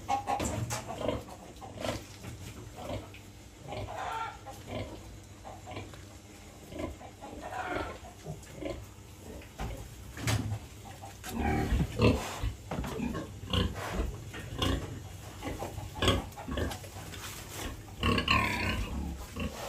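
Piglets grunting and squealing in many short, irregular calls, with scattered knocks and thumps.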